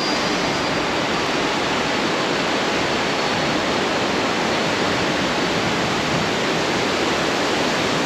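Steady, even rush of falling water from the Tiger Fall waterfall.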